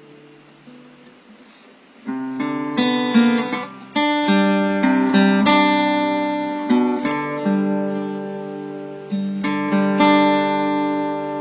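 Acoustic guitar playing: soft ringing notes at first, then strummed and picked chords come in loudly about two seconds in, each left to ring and fade.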